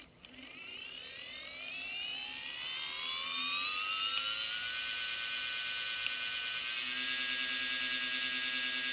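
Electric motor starting with a click and spinning up, its whine rising in pitch for about four seconds, then running steady at speed. Two sharp clicks, about four and six seconds in, mark the brief interruptions that are the motor's fault.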